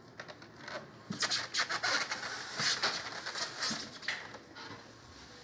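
Clear plastic wrapping crinkling and crackling as it is handled, a burst of rustling that starts about a second in and lasts about three seconds.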